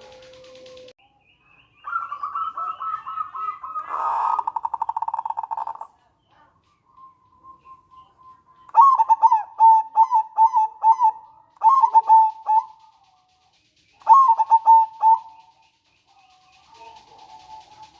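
Zebra dove (perkutut) singing. It begins with a fast rattling trill of rapid notes, then about halfway in gives a loud burst of quick, clipped coos, and a shorter burst near the end.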